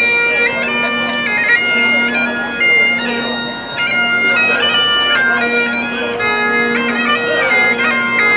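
Bagpipes playing a tune for a marching procession, a shifting melody over held drone notes.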